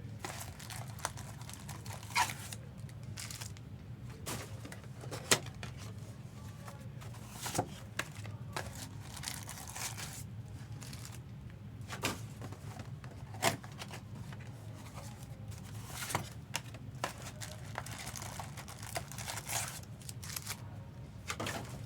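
Foil trading-card packs being torn open and their wrappers crinkled, with scattered light clicks and taps of cards being handled, over a steady low hum.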